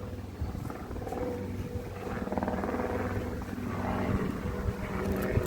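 Many honey bees buzzing around an opened hive: a steady drone with wind rumbling on the microphone.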